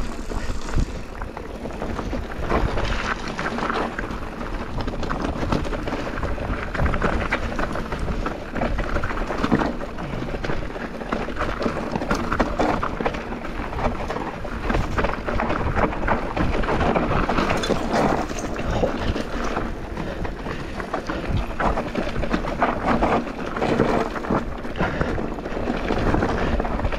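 Enduro mountain bike descending a dry, stony trail: steady tyre noise over loose dirt and stones with constant rattling and knocks from the bike.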